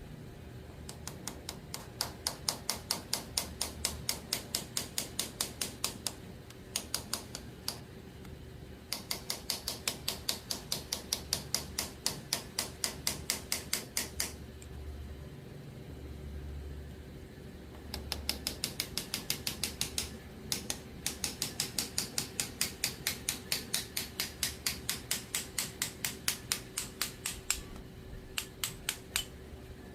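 Quick, even hammer taps on metal, about four or five a second, in runs of several seconds with short pauses between.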